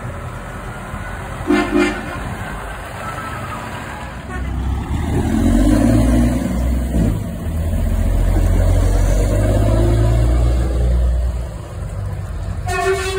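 Heavy trucks pulling away: a short lorry horn toot about a second and a half in, then a truck's diesel engine running loud and low as it passes from about four seconds in, easing off near the end where another horn toot begins.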